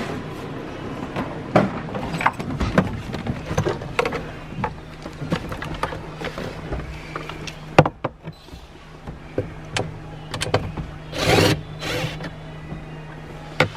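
Irregular clicks, taps and knocks of hand tools and plastic dashboard trim being worked loose in a car interior, with a longer scraping rattle about eleven seconds in, over a steady low hum.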